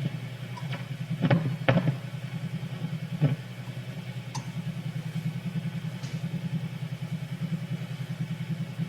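Philco model 64 tube radio's speaker giving out a steady, low, rapidly pulsing buzz, with a few sharp clicks in the first few seconds.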